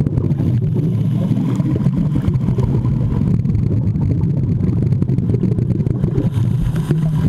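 Steady, loud, muffled low rumble heard underwater by a submerged camera, with faint clicks scattered through it.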